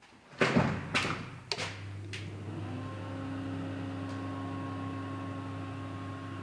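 Several knocks and clatters, then from about a second and a half in a steady machine hum.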